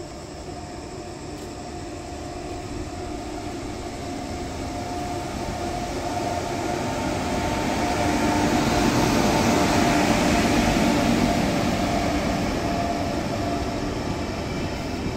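WAP-7 electric locomotive hauling an express train slowly past at crawling speed, with a steady hum over a rumble. It grows louder as the locomotive approaches, is loudest a little past halfway as it passes close, then eases as the coaches roll by.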